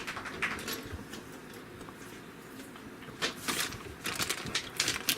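Shredded cheese being handled and scattered onto the pizza: light, irregular rustling, busiest from about three seconds in.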